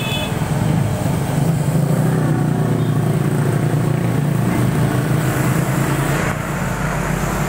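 A motor vehicle's engine running close by: a steady low rumble that grows louder and rises a little in pitch a couple of seconds in.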